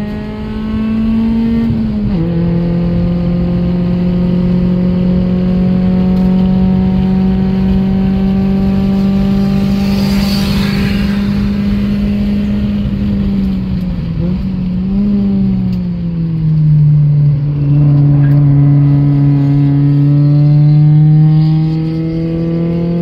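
Car engine pulling hard on a race track, heard from inside the cabin. It holds a steady note, drops in pitch at an upshift about two seconds in, dips briefly and drops again at another upshift about two-thirds of the way through, then climbs slowly.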